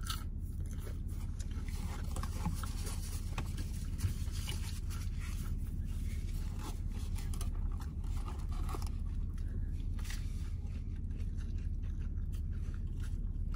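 Close-up handling of fast-food paper packaging, crinkling and scraping in irregular crackles, with eating sounds. A steady low hum lies underneath.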